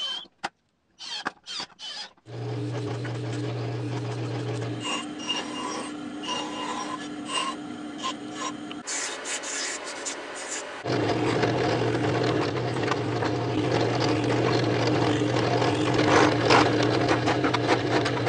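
Woodworking power tools in quick succession. A cordless drill runs in short bursts driving screws into a clamped pine board. A drill press motor then hums while drilling into wood, with a brief stretch of a narrow belt sander grinding a small wood block in between. The drill press drilling, louder and steady, fills the second half.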